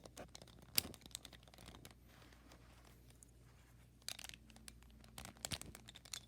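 Plastic pieces of a 3x3 Rubik's Cube clicking and knocking as they are handled and fitted back onto the cube during reassembly, in faint scattered clicks with a sharper one about a second in and small clusters later on.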